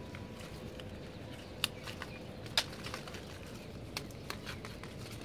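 Bean pods being picked by hand off the vine: a handful of sharp snaps and clicks with rustling of leaves and stems, scattered irregularly over steady background noise.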